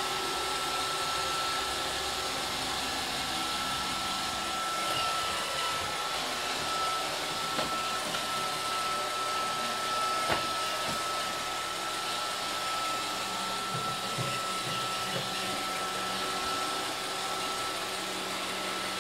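iRobot Roomba 532 robot vacuum running on a wooden floor: a steady whir of its vacuum and brush motors with a thin, steady high whine. A few light knocks come through, the clearest about ten seconds in as its bumper meets a table leg.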